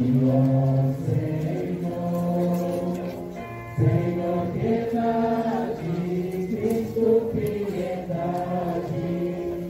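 A congregation singing a slow hymn together, with long held notes.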